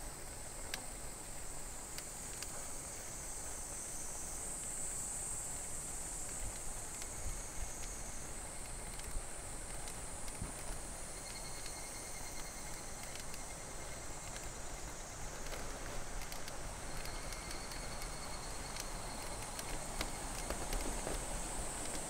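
A steady, high-pitched chorus of summer insects, with a few faint clicks.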